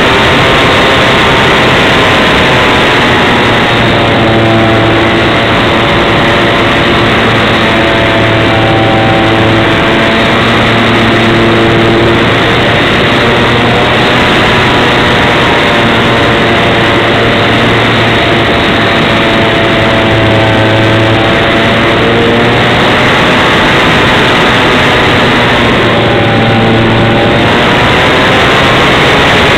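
A model aerobatic airplane's motor and propeller running in flight, heard through heavy wind rush on a wing-mounted camera's microphone. The whine's pitch sweeps up and down gently as the throttle changes.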